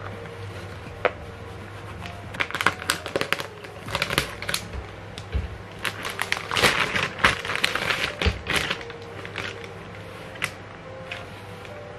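Clear plastic packaging crinkling and rustling as a cushion is handled and pulled out of its bag, in a busy run of crackles that is loudest a little past the middle and dies away near the end.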